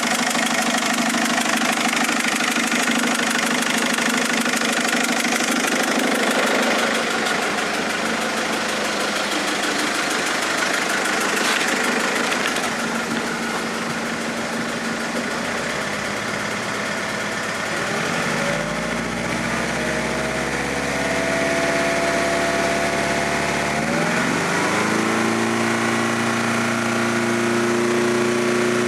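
Mercedes-Benz A170 engine running with a knocking sound that is still there after three injectors were replaced. The engine note steps up in pitch twice in the second half and holds higher each time.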